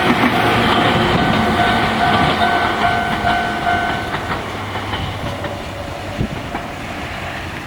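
Electric train passing over a level crossing, wheels clacking on the rail joints, while the crossing's electronic warning bell sounds in a steady repeating ring. The bell stops about four seconds in as the crossing clears, and the train noise fades away.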